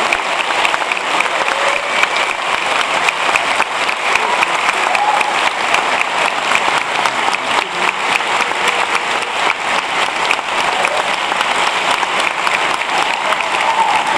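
Large audience applauding: many hands clapping together in a dense, steady wash that holds at the same level throughout.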